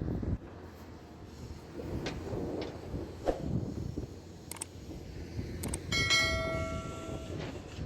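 Earthmoving machinery at work, a backhoe loader and an excavator, with a low engine rumble and several sharp knocks. About six seconds in, a ringing pitched tone starts suddenly and lasts over a second.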